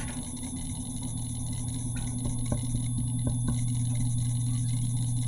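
Steady low hum of room noise, with a few faint clicks between about two and three and a half seconds in.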